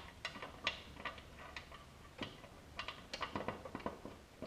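Faint, scattered light metallic clicks and taps of bolts and a metal plate being handled while the plate is held up for bolting on.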